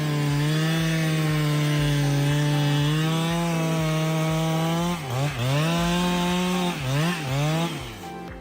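Chainsaw running at high speed in a cut, holding a steady pitch for about five seconds. The pitch then drops sharply and climbs back twice before the sound fades near the end.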